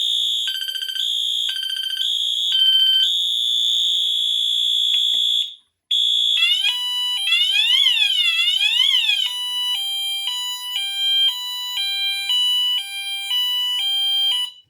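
Fire alarm horns sounding: a steady high continuous horn tone with three short pulsed tones over it, cutting off about five and a half seconds in. After a moment of silence a Wheelock MT multi-tone horn starts a repeated rising-and-falling sweep, then from about nine seconds in switches to a two-tone high-low pattern alternating about twice a second, as its tone settings are changed.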